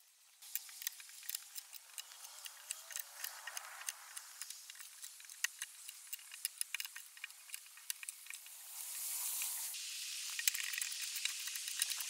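Hand tools working a log: a dense run of small, irregular clicks over a scratchy hiss, growing louder and harsher about nine seconds in.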